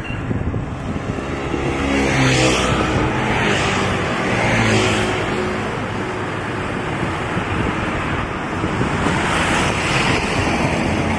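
Rushing wind and road noise on the microphone of a moving bicycle, with the engine drone of a motor vehicle passing about two to five seconds in.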